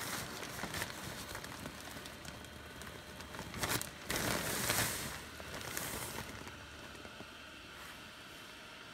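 Newly replaced small 12-volt blower fan of a Gemmy airblown inflatable running steadily as the nylon figure fills with air. Louder crinkling and rustling of the fabric under a hand about four seconds in.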